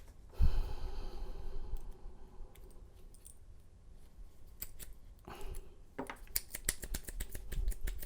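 Master Lock 6721 padlock being worked by hand to free its shackle: a sudden gritty scrape about half a second in, then a quick run of metallic clicks and rattles from about six seconds in. The lock feels as if it is filled with sand.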